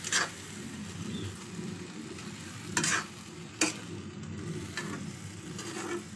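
Steel ladle stirring and scraping dried peas and potato pieces around a steel kadai over a steady sizzle of frying, with a few sharp clanks of the ladle against the pan, the loudest near the start and about three seconds in.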